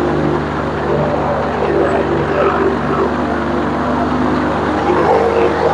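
Rotax 912 engine of a delta-wing ultralight trike running steadily, picked up through the intercom recording with a layer of hiss.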